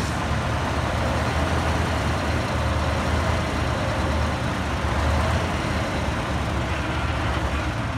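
Hyundai dump truck's diesel engine running steadily with a deep rumble while its hydraulic hoist raises the tipper bed to dump a load of soil.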